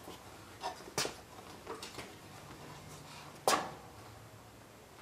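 A few light metal knocks and clinks as the 1969 Rupp Roadster mini bike's rear swing arm assembly is manoeuvred against its steel frame, the loudest knock about three and a half seconds in, with a short ring after it.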